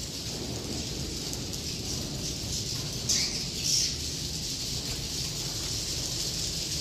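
A building full of edible-nest swiftlets twittering and clicking continuously as a dense high chatter, with two louder calls about three seconds in, the first sliding down in pitch. A steady low hum runs underneath.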